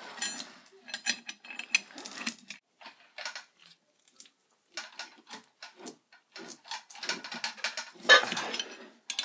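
Ratchet wrench clicking in short irregular runs as it turns the forcing screw of a three-jaw bearing puller, drawing an old bearing off an induction motor's rotor shaft.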